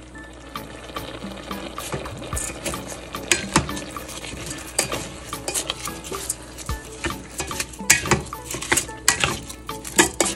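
Plastic spatula stirring rice into chicken and sauce in a multicooker's inner pot: irregular scraping and clicking against the pot. It starts about two seconds in and gets busier near the end.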